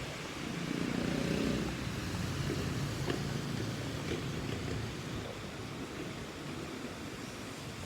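Steady rushing noise of typhoon wind and rain, with a low rumble swelling about a second in and easing off after two seconds.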